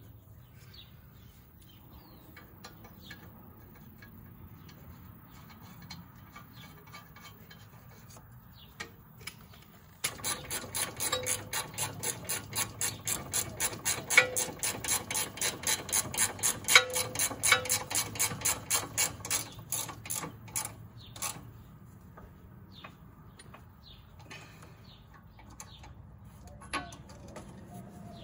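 Ratchet wrench clicking evenly, about three clicks a second for some ten seconds, as a nut is run onto the upper ball joint stud. Light handling of metal suspension parts before and after.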